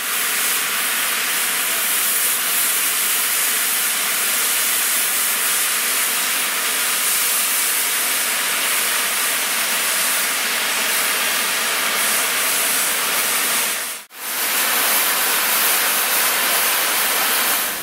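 Steam hissing steadily and loudly from the standing Royal Scot class 4-6-0 steam locomotive 46100, venting around the cab side. The hiss breaks off once for a moment about 14 seconds in.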